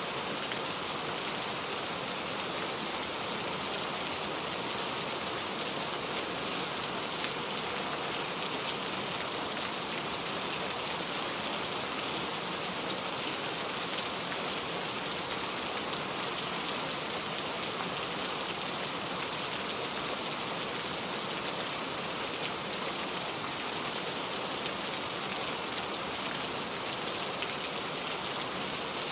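Steady rain falling: an even hiss flecked with fine ticks of single drops.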